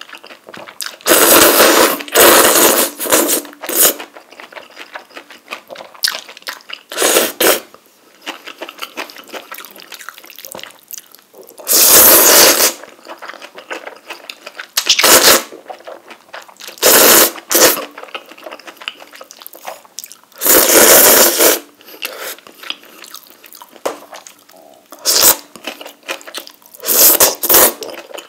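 Close-miked mukbang eating: ramen noodles from spicy rabokki slurped in repeated loud slurps every few seconds, with quieter chewing between.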